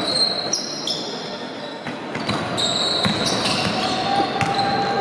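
Basketball game in a sports hall: the ball bouncing on the court, sneakers squeaking sharply in short high-pitched bursts, and a steady background of players' and spectators' voices.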